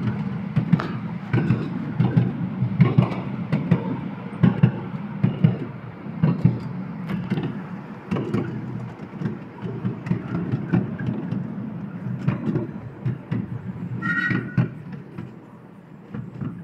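Miniature ride-on steam railway train running along its track: a steady rumble of wheels with irregular clacks and knocks from the rails. A brief high squeal comes near the end, and the sound grows quieter just before the end.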